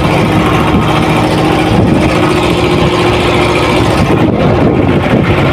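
A river boat's engine running steadily with a loud, even hum while the boat is under way.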